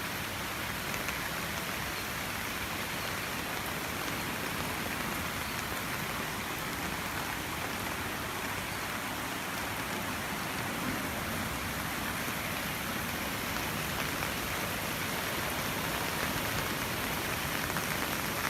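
Heavy rain falling steadily, a constant hiss with faint scattered drop ticks.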